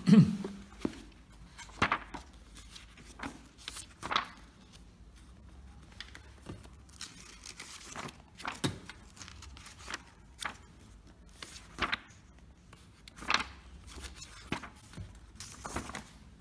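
Paper pages of a thick technical handbook being flipped, with short rustling swishes every second or two. A dull thump comes right at the start.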